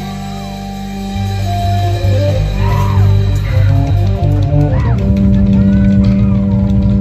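Loud music with deep, held bass notes and a few gliding higher notes in the middle.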